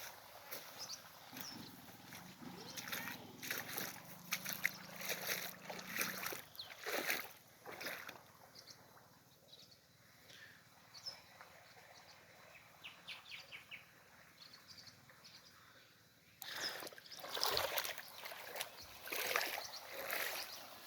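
Rain falling, with irregular drips and splashes of water. It eases off for a few seconds mid-way, then the splashing picks up again near the end.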